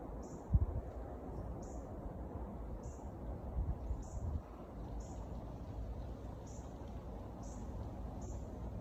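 A short, high-pitched chirp repeating at an even pace, about once every 0.8 seconds, over a low rumble, with one sharp bump about half a second in.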